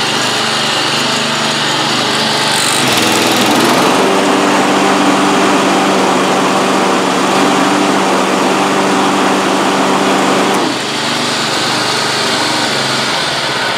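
John Deere JX75 walk-behind lawn mower's engine running steadily at speed; near the end its note changes and drops a little quieter.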